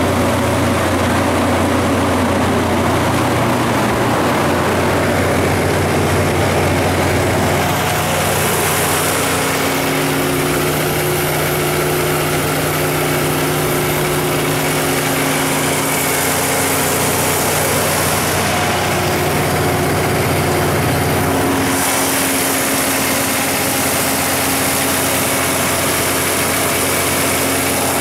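Kohler 180 kW diesel generator set running steadily at constant governed speed, its John Deere 6081 inline-six diesel engine sounding through the enclosure. The tone shifts slightly about eight seconds in and again near twenty-two seconds.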